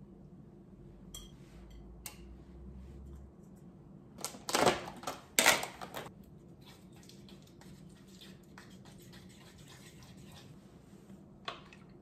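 Kitchen utensils and dishes being handled during cooking: a few light clicks, two louder half-second clatters about four and five seconds in, then a run of small taps and ticks.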